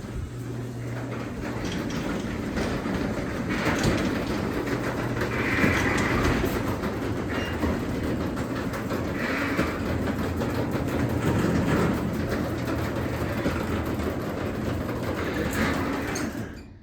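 Craftsman 3/4 hp belt-drive garage door opener running through one cycle, most likely opening the door: a steady motor hum under the rumble and clatter of the door travelling along its tracks. It stops suddenly near the end, as the opener reaches its limit.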